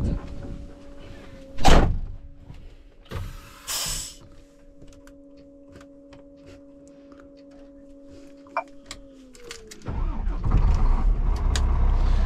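Heavy diesel truck engine started from inside the cab. A steady electric whine runs with a few knocks and clunks; about ten seconds in the whine sags in pitch as the engine cranks and catches, and the engine then keeps running steadily.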